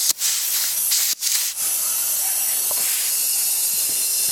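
Compressed air hissing from an air-hose chuck into a potato air cannon's pressure chamber as it is pumped up toward 80–100 psi. The hiss cuts out briefly twice in the first second and a half, then runs steady.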